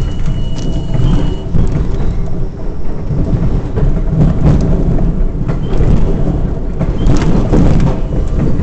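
Inside an R42 subway car under way: a steady, loud rumble with the irregular clicks and clatter of steel wheels on the track.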